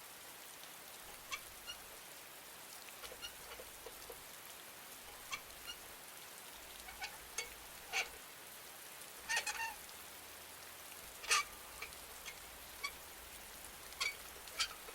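A swing's hinges squeaking in short, irregular creaks as the wind rocks it, over the steady hiss of falling rain. The loudest creaks come in the middle, one a quick double squeak.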